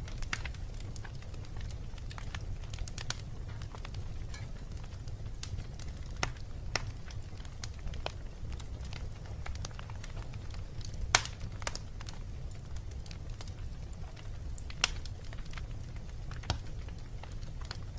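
Fire burning: a steady low rumble with irregular sharp crackles and pops, the loudest about eleven seconds in and another near fifteen seconds.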